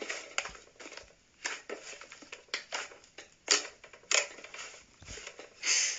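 Hands squeezing and kneading soft slime, making irregular small wet pops and clicks, with a louder squish near the end.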